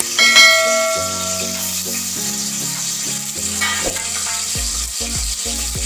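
Chopped onion sizzling steadily in hot oil in an aluminium pressure cooker, frying for the tempering. A brief ringing chime sounds near the start and fades over about a second.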